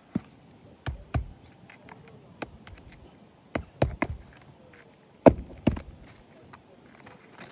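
Hammer nailing down asphalt roof shingles: a string of irregular sharp knocks, about nine in all, the loudest about five seconds in.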